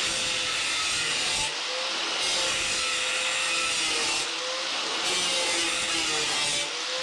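Power grinder cutting a channel into the bottom of a doorway: a steady cutting whine with brief dips about every two to three seconds as the cut eases off.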